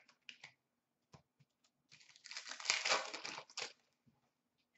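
Hockey trading cards and their packaging being handled by hand: a few light clicks and taps, then about a second and a half of dense crinkling and rustling near the middle.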